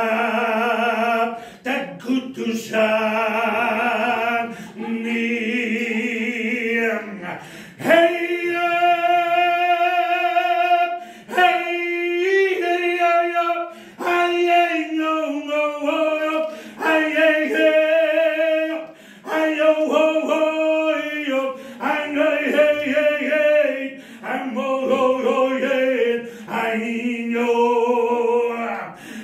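A man singing solo and unaccompanied in long, held notes with a wavering vibrato, pausing briefly for breath between phrases.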